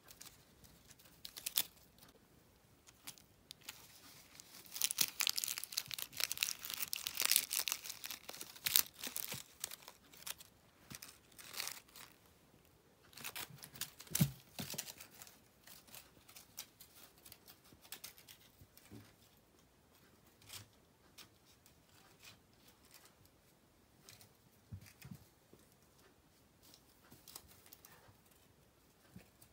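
Metallic foil crinkle-ball cat toy rustling and crinkling in irregular bursts as a kitten bats and bites at it, with scuffs on carpet. The busiest crinkling comes about five to nine seconds in, and there is a single dull thump about halfway.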